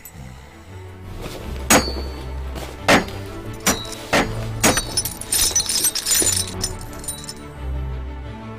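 Film score music with a low pulsing bass, cut through by about five sharp clinking hits in the first half, then a bright glassy jingling rattle about five seconds in.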